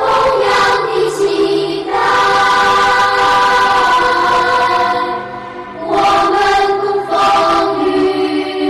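A choir singing a slow Buddhist chant in long held notes, easing off briefly about five seconds in before the voices come back.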